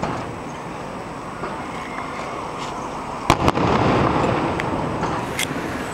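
Aerial firework shells bursting: the rumbling echo of an earlier burst fades out, then two sharp bangs in quick succession just past halfway set off a fresh rolling, echoing rumble. A couple of fainter pops follow near the end.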